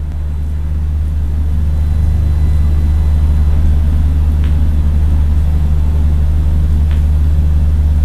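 Steady low hum that swells over the first few seconds and then holds level, with two faint clicks about four and a half and seven seconds in.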